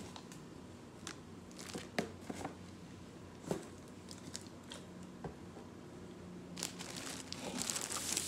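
Plastic being handled on a table: a plastic water bottle and snack packaging crinkle, with scattered sharp clicks and taps through the first half and a longer stretch of rustling near the end.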